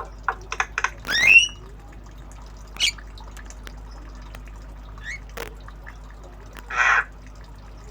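Javan myna calling: a few quick clicks, then a loud squawk with a rising and falling whistle about a second in, short calls near three and five seconds, and a harsh rasping squawk near the end. The bird is practising new sounds.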